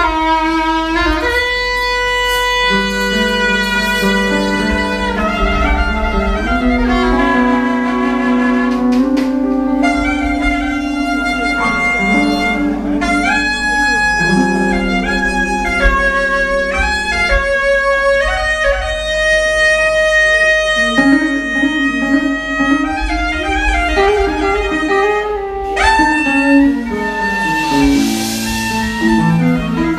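Live band playing an angular instrumental: held, stepping saxophone notes over electric guitars and bass guitar, with a cymbal wash near the end.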